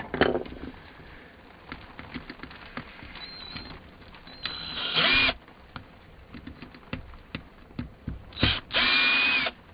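Small cordless electric screwdriver running in two short bursts, one about four and a half seconds in and a louder one about eight and a half seconds in, backing out screws. Light handling clicks in between.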